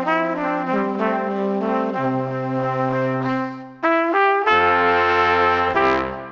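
Instrumental background music with a brass melody over held low notes; it drops away briefly just before four seconds in and returns as fuller, sustained chords.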